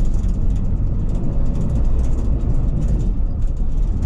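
Coach bus running, heard from inside the passenger cabin: a steady low engine and road rumble with faint clicks and rattles above it.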